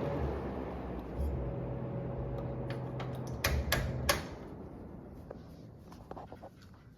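1970s Montgomery Ward (Hunter) seven-blade box fan running with a steady motor hum and airflow, then a few sharp clicks of its speed control about halfway through as it is switched off. After that the hum stops and the airflow fades as the blades coast down.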